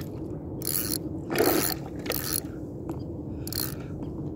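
Spinning reel being cranked steadily as a hooked zander is played, its gears turning with a mechanical churn, with a few short hissing bursts over it, the loudest about a second and a half in.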